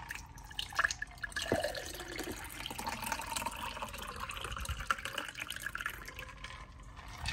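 Agua de tamarindo poured from a glass pitcher of ice into a tall glass: a steady splashing pour as the glass fills and froths, with a couple of clicks in the first two seconds.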